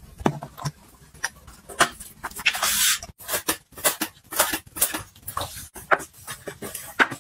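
Handling sounds of plastic cleaning gear, a floor-cleaner bottle and a flat mop: a quick, uneven run of clicks, taps and squeaks, with a short hissing burst about two and a half seconds in.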